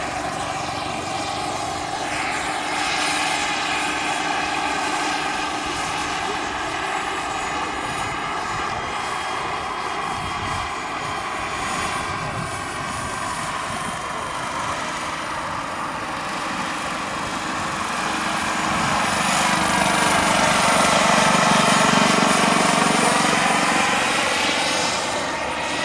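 Large radio-controlled Bell 206B-3 JetRanger scale helicopter in flight, its model gas turbine whining steadily under the rotor's sound. It grows louder from about two-thirds of the way in as it passes close, its pitch bending, then falls back near the end.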